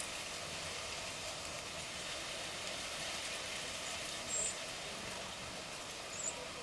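Two brief, high-pitched bird chirps about two seconds apart, over a steady outdoor background hiss.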